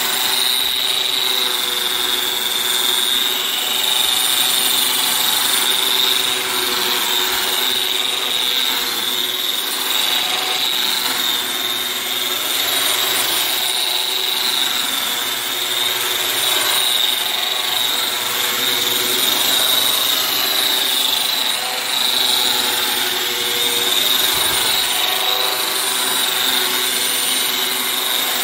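Handheld round-pad wall sander with built-in dust extraction running steadily, its spinning pad abrading dried wallpaper glue off a concrete wall. It makes a steady high whine over a rough sanding hiss.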